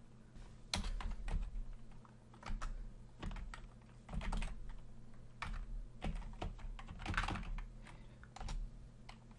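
Computer keyboard being typed on in slow, uneven clusters of keystrokes, entering a short terminal command. A low steady hum sits underneath.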